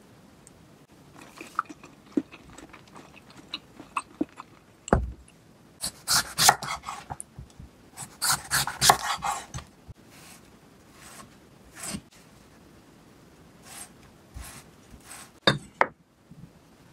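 Chef's knife slicing an eggplant into rounds on an end-grain wooden cutting board: quick runs of crisp cuts, each ending in a knock on the board. There is a low thud about five seconds in, and a few lighter knocks near the end as the slices are handled and set down.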